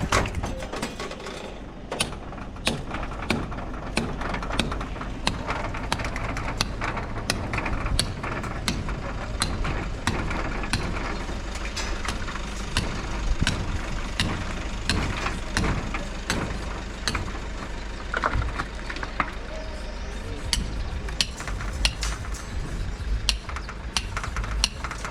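Irregular knocks and clatter of construction work, over a steady low hum, with music playing in the background.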